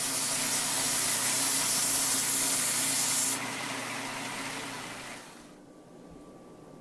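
Steel knife being ground on a power grinder's abrasive: a steady, hissing grind that cuts off about three seconds in as the steel comes off the abrasive. The machine runs on more quietly and fades out about five seconds in.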